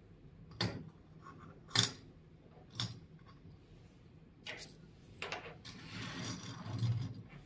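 Metal washers clinking as they are set down on the 3D-printed plastic pans of a balance scale: about five sharp clinks a second or so apart, the second one loudest. A rustling, sliding stretch follows near the end.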